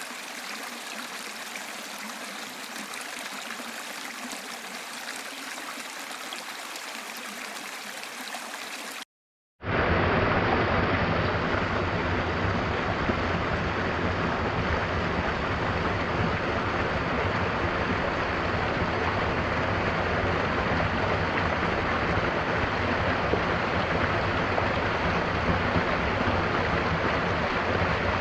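Jungle waterfall: steady rushing and splashing of falling water. It cuts out for a moment about nine seconds in and comes back louder and deeper.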